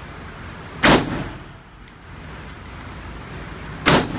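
Two gunshots about three seconds apart at a shooting range, each sharp crack followed by a short ringing tail, with a few faint clicks in between.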